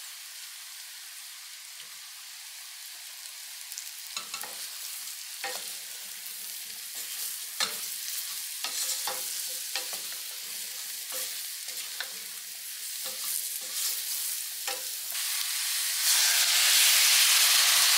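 Diced mushrooms sizzling in hot coconut oil in a stainless steel pan, with a wooden spatula stirring them from about four seconds in: repeated scrapes and knocks against the pan over the steady sizzle. About two seconds before the end, water is poured into the hot pan and the sizzle jumps to a much louder steaming hiss.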